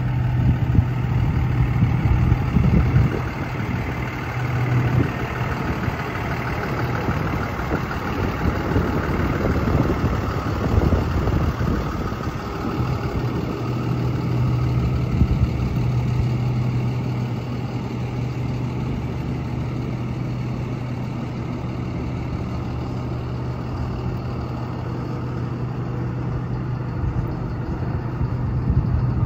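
A 2017 International 4300's 6.7-litre Cummins inline-six turbodiesel idling steadily.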